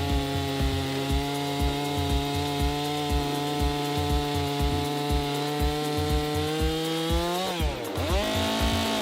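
Chainsaw running at high, steady revs while cutting wood; about seven and a half seconds in, its pitch dips sharply and recovers. Background music with a steady beat plays under it.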